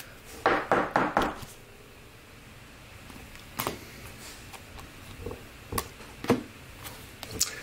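A stack of Topps Finest baseball cards being handled and flipped through by hand: a short patch of rustling about half a second to a second in, then a few scattered sharp clicks and taps as the cards are moved.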